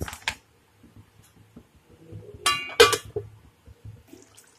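A metal lid is set down on a metal kadhai, clinking and ringing briefly about two and a half seconds in. Just before, a wooden spatula knocks twice against the pan at the start.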